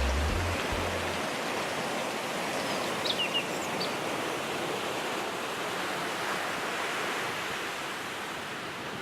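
A steady rush of water, fading slowly, with a few short high bird chirps about three seconds in. The last bass notes of a song die away in the first second.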